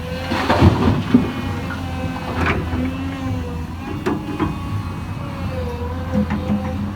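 Hydraulic excavator's diesel engine running steadily, with a wavering hydraulic whine over it. A burst of clattering comes about half a second in, and a few sharp knocks follow later.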